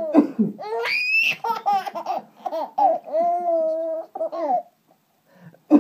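Five-month-old baby girl laughing hysterically in high squeals. A sharp rising shriek comes about a second in, then longer held squealing notes, with a short pause near the end.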